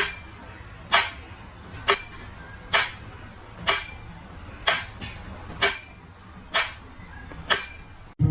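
Sharp clicks with a short ring, repeating evenly about once a second, over a steady thin high-pitched tone and a low hum.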